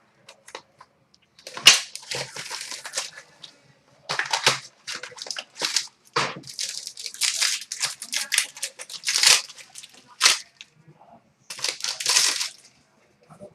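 Trading card pack wrapper being torn open and crinkled, with the cards handled, in a run of short crackling bursts and clicks.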